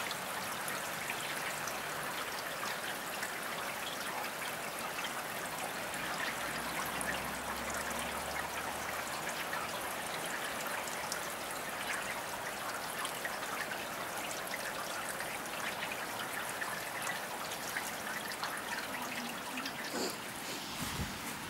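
Steady rain falling: an even hiss of countless small drops, unchanging throughout, with a brief knock near the end.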